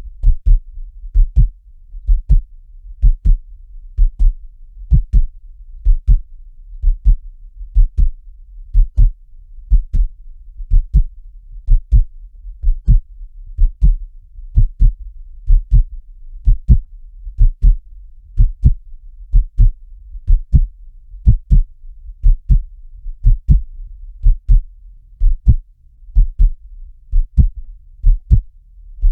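Heartbeat sound effect at a medium, resting pace: low paired thumps, lub-dub, about one beat a second and steady throughout, over a faint low hum.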